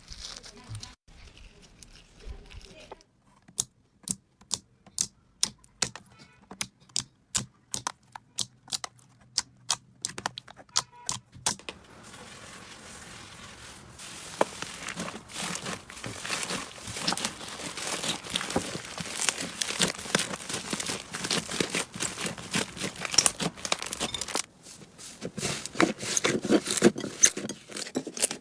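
Slime being squeezed and poked by hand: separate sharp clicks and pops from trapped air at first, then a dense, continuous crackling from about halfway through.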